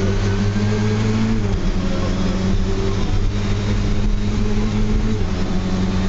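Lada VFTS rally car's four-cylinder engine heard from inside the cabin, running hard. Its note is mostly steady, dips briefly about a second and a half in, and steps down about five seconds in.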